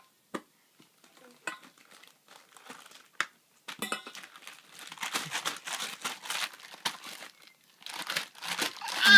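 A few isolated light taps on an upturned stainless-steel bowl, then a baby crumpling and shaking a crinkly toy, giving a dense crinkling from about four seconds in.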